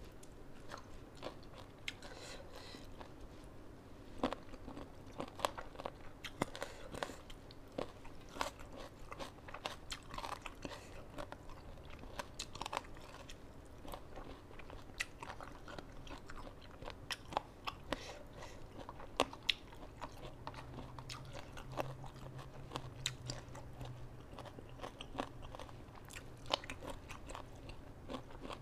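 A person chewing and biting mouthfuls of tam sua salad with rice noodles and fresh vegetables, with many small irregular crunches and wet clicks.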